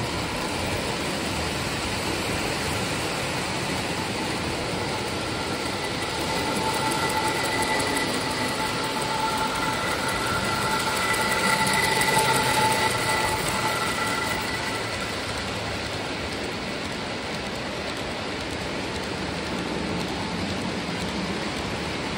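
Lionel O-gauge model of the Pennsylvania S2 turbine locomotive No. 6200 running on three-rail track: a steady rolling rumble of wheels and motor that grows louder as the locomotive passes close about halfway through. A steady high tone rises and fades with it in the middle.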